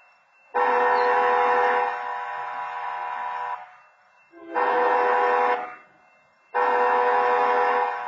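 Automated wayside horn at a rail crossing sounding a chord-like train-horn signal in the crossing pattern: a long blast, a short blast, then another long blast starting about two-thirds of the way in. Each long blast drops to a lower level partway through.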